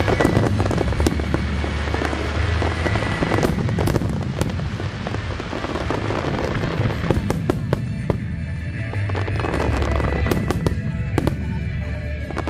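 Large aerial fireworks display, close up: a continuous rumble of shell bursts with dense crackling and many sharp bangs, the bangs coming thicker in the second half.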